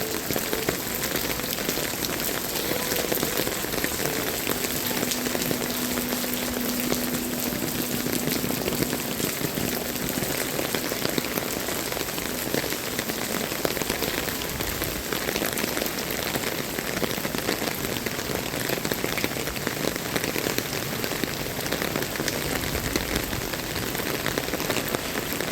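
Heavy rain pouring down steadily, a dense hiss of countless drops striking the ground and surfaces close by.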